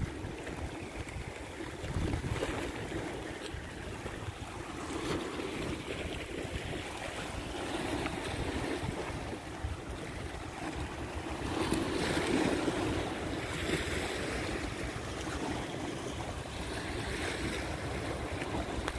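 Wind blowing across the microphone over small waves washing against the rocks of a seawall: a steady rushing that swells a little about two seconds in and again around twelve seconds.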